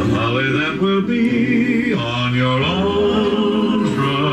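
Background music: a song with a man singing.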